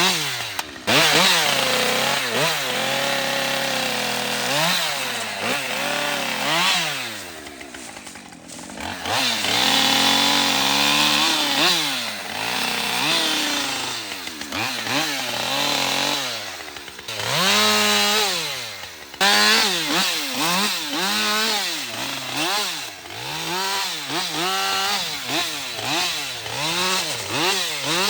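Gas chainsaw bucking limbs into firewood: the engine pitch climbs and falls over and over as the throttle is worked and the chain goes through the wood. There is a brief drop in level about eight seconds in.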